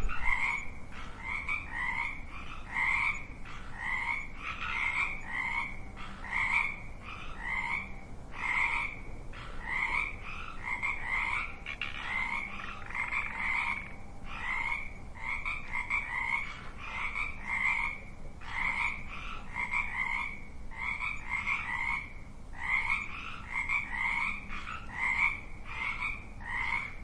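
A chorus of frogs croaking, with short calls following one another one to two times a second and often overlapping.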